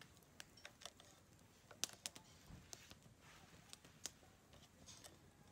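Wood fire crackling: faint, irregular sharp pops and ticks from burning sticks.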